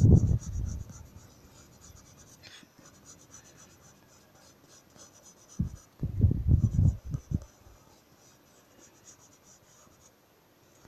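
Graphite pencil scratching on lined notebook paper in short sketching strokes. Around the middle there is a brief cluster of louder, low, muffled thumps.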